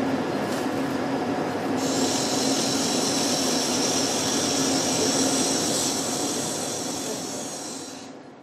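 High-speed surgical burr (2 × 20 mm) running steadily with a constant hum, grinding away a residual spike of bone at the bunion; about two seconds in a higher hissing grind joins as it bites into the bone. The sound fades away near the end.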